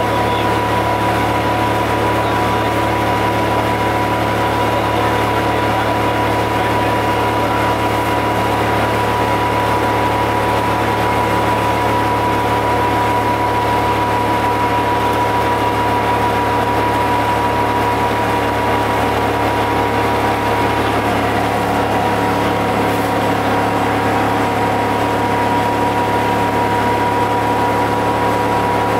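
GM TDH-5303 transit bus's diesel engine running steadily, with a steady high whine over the engine note.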